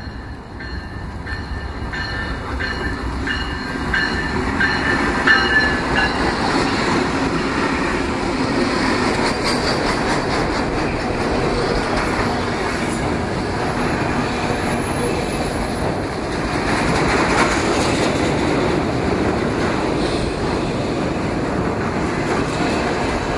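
Norfolk Southern freight train passing close by at speed. The rumble builds over the first few seconds as the locomotive goes by, with high squealing tones for the first six seconds. Then comes the steady rumble and wheel clatter of a long string of autorack cars.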